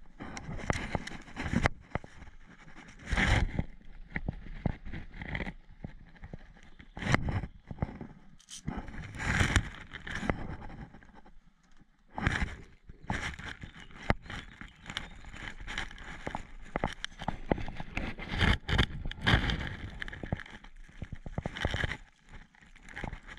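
Crackling and scraping of a person moving over dry forest floor: feet and knees shifting on twigs and leaf litter, and clothing and gear brushing against the body-worn camera, in uneven bursts.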